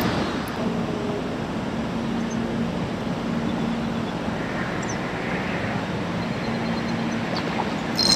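Steady low background hum over calm water while a topwater lure is retrieved. Just before the end a bass strikes the topwater lure with a sudden, violent splash as the rod is swept back.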